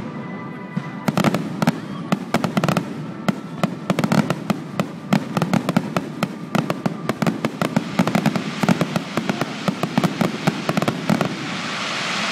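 Fireworks display: a rapid barrage of sharp bangs and crackling bursts, many a second. Near the end the separate bangs give way to a steadier rushing hiss.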